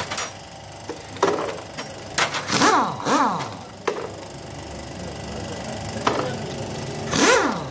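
Workshop clatter of tools on a Suzuki Alto 660 cc engine being dismantled: sharp metallic knocks, and short whines that drop quickly in pitch, twice close together and again near the end.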